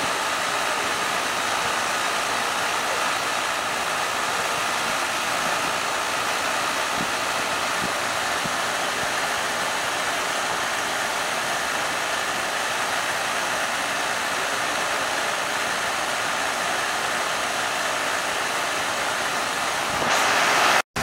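5-ton air conditioning condensing unit running, its condenser fan making a steady rush of air. The sound cuts off abruptly at the very end.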